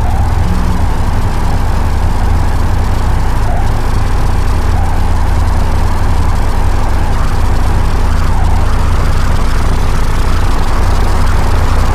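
Steady, loud low rumbling drone with a constant hum above it, unbroken throughout.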